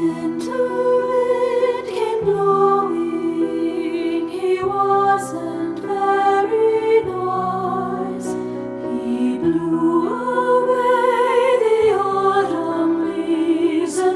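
Soft piano chords, struck about every two and a half seconds, under a flute melody played with vibrato.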